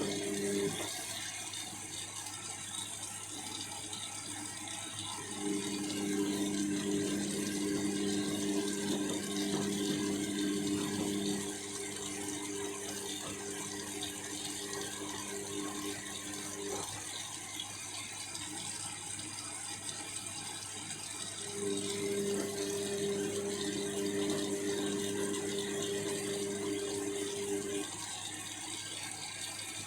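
Overloaded 7 kg washing machine tumbling its drum during a wash cycle, with water sloshing inside. The drive motor hums in stretches: it starts about five seconds in, stops after about eleven seconds, and runs again for about six seconds near the end. The motor is under heavy strain from the water-logged load.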